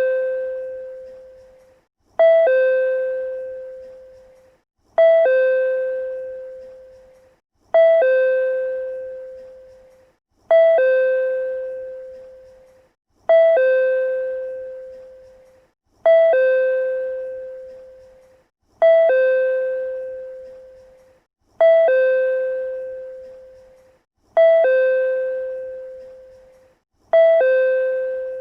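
PRC-type chime sounding over and over on a loop. Each ring is a brief higher note followed by a lower ringing note that fades over about two seconds, repeating about every three seconds.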